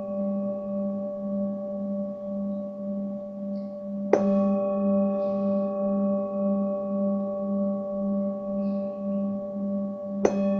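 Singing bowl ringing with a low, wavering hum, struck again twice, about four seconds in and near the end, each strike setting off fresh ringing overtones.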